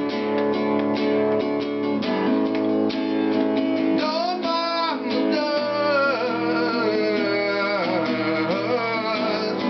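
A song played on acoustic guitar, strummed steadily, with a voice singing a gliding melody over it and no clear words.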